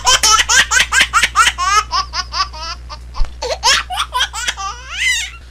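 A baby laughing in quick, repeated giggles over a steady low hum.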